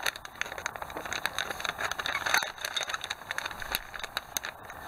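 Clear plastic bag of model-kit sprues crinkling as it is handled and turned over in the hands, a dense run of small crackles and clicks.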